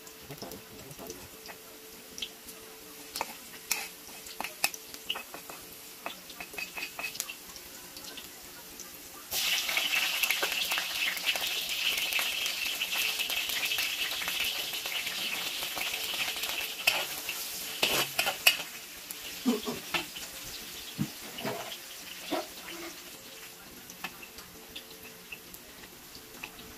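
Food frying in a pan. A few light clinks of utensils come first. About nine seconds in, a loud sizzle starts suddenly and runs for about nine seconds before dying down, with a couple of sharp knocks near its end.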